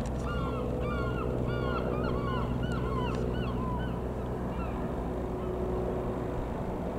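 Birds calling repeatedly in short rising-and-falling calls, several a second, thinning out about two-thirds of the way through. Under them runs the steady drone of a Reims Cessna F172N Skyhawk's four-cylinder piston engine and propeller flying overhead.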